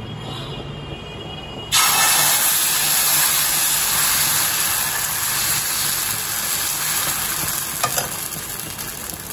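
Dosa batter sizzling on a hot greased iron tawa. The sizzle starts suddenly and loudly about two seconds in as the batter is poured and spread, then fades slowly.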